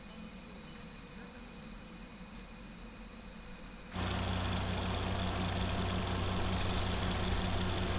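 Insects trilling steadily. About halfway through, a low, steady engine hum starts abruptly and runs under them, like a vehicle engine idling.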